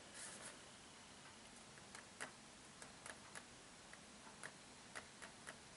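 Near silence: room tone with about ten faint, irregularly spaced clicks from handling the phone.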